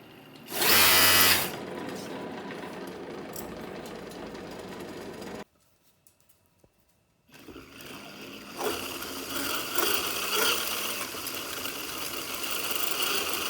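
An electric bike's 80100 brushless outrunner motor and chain drive whirring under power, with a loud surge about a second in. The sound cuts off suddenly for about two seconds, then comes back and builds up again.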